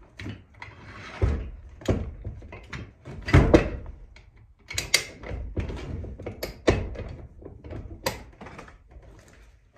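Irregular wooden knocks, thuds and scraping as a long-handled steel bar strikes and pries at the old barn wall's timbers, about half a dozen hard hits, the loudest about three and a half seconds in.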